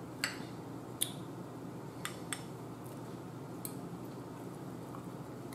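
A metal fork clicking against a ceramic bowl of food, about five short sharp taps at uneven intervals over a low steady room hum.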